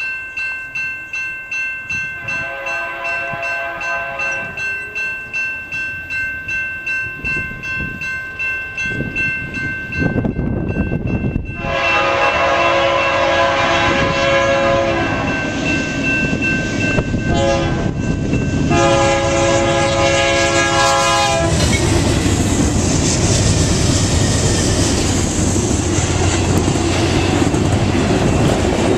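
A grade-crossing bell rings in rapid, steady strokes as BNSF 4877, a GE Dash 9-44CW locomotive, sounds its horn for the crossing in the long, long, short, long pattern, faint at first and then loud as it nears. About two-thirds of the way through the horn stops, and the locomotive's engine rumbles past. Double-stack intermodal cars follow, rolling by with a clickety-clack of wheels on rail joints.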